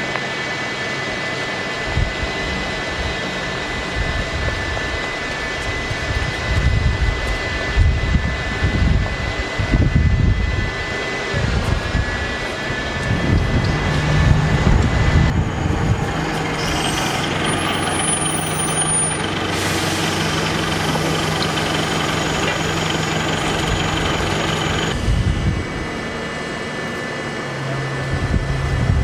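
Outdoor traffic noise with the low, steady running of bus engines; the hum shifts in pitch and level a few times.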